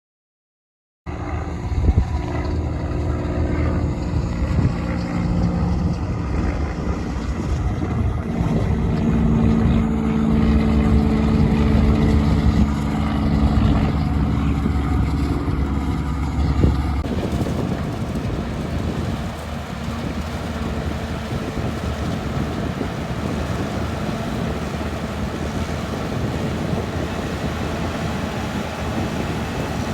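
Corn silage harvesting machinery running steadily with a deep engine hum. The sound changes abruptly about 17 seconds in to a more even, hissing machine noise.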